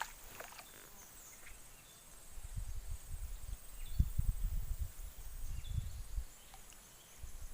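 Quiet outdoor ambience with a few faint high chirps. From about two seconds in, irregular low rumbling noise comes and goes for about four seconds, typical of wind or handling on the microphone.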